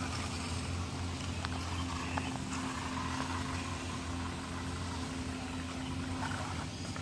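A steady low mechanical hum, with a few faint clicks about a second and a half and two seconds in.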